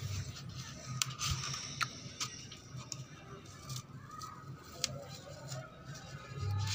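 Scattered light clicks and taps of plastic toys being handled, over a low steady hum.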